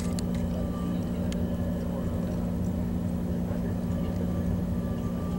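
Steady running noise inside a moving passenger train coach: a continuous low hum over a rumble, with two faint clicks in the first second and a half.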